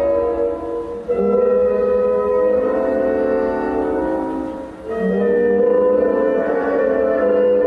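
Classical orchestral ballet music with sustained string and woodwind notes. It dips briefly about a second in and again just before five seconds, as one phrase ends and the next begins.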